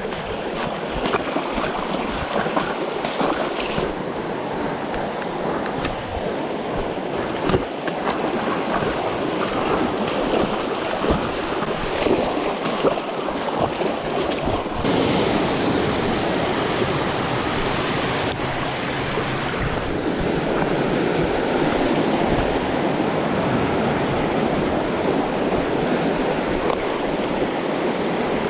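Steady rush of flowing river water, with scattered knocks of footfalls on the trail.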